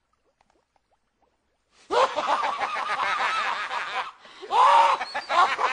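Near silence for about two seconds, then men laughing loudly and hard in repeated bursts, with a brief break a little after four seconds before an even louder burst.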